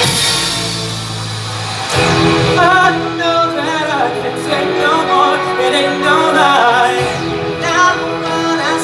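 Pop music from a boy band medley with singing; the sung lines come in about two seconds in over sustained backing chords.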